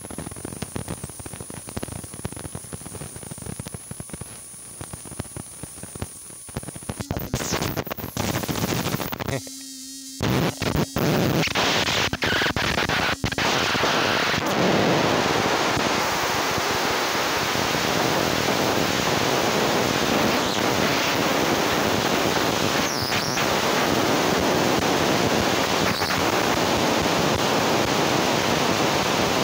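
Night insects trilling, one high steady tone over a faint hiss. About seven seconds in come knocks and rubbing and a brief dropout. After that, a loud steady rushing noise covers everything.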